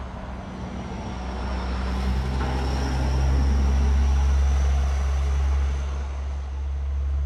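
A motor vehicle's low engine rumble, growing louder to a peak about four seconds in and then easing off, with a faint high whine above it.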